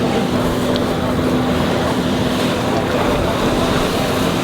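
Motorboat engine running steadily with a low hum, over wind buffeting the microphone and water rushing past the hull.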